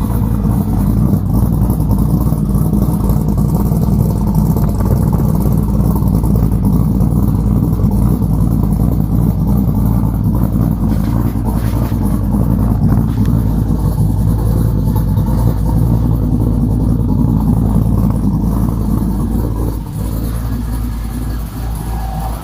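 Ford Ranger's swapped 5.3-litre LM7 V8, fitted with a Texas Speed cam, running steadily through an X-pipe and MagnaFlow mufflers. The engine is running on a newly installed wiring harness.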